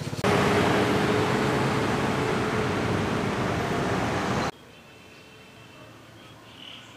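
Loud, steady road-traffic noise with an engine hum, cut off abruptly about four and a half seconds in. Quiet outdoor ambience with faint bird chirps follows.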